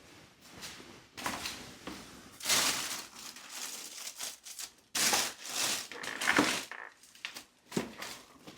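Rustling, scraping and clattering of things being handled and shifted, in irregular bursts: someone rummaging through old stored items.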